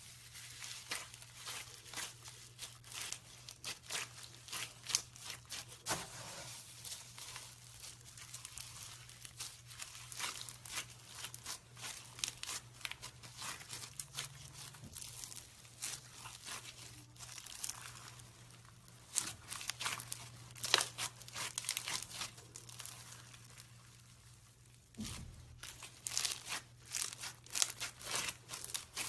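Foam slime being squished and stretched by hand, giving rapid crackling and popping clicks that pause briefly near the end before starting again.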